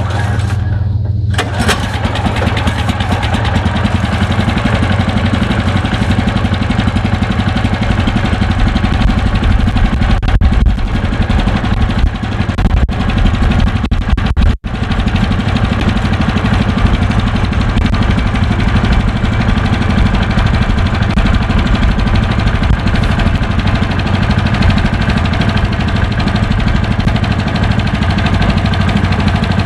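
Engine of a portable sawmill running steadily at a loud level, with a wider rushing noise joining in about two seconds in and a very brief break about halfway through.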